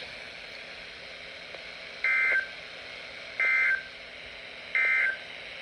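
Three short, identical bursts of two-tone digital data screech from the Emergency Alert System's SAME code, about 1.3 seconds apart, over a faint steady radio hiss. This is the end-of-message signal that closes a NOAA Weather Radio warning broadcast.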